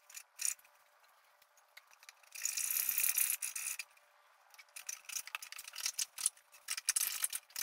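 Light handling noises on a large cardboard tube: a scraping rustle lasting about a second and a half, then a run of small irregular clicks and rattles.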